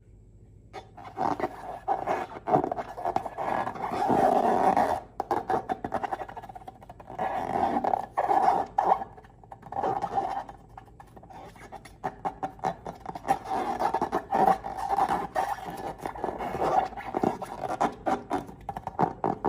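Rubbery squeaking and crackling as hands work long latex balloons and slime, in irregular swells of squeals and short crackles.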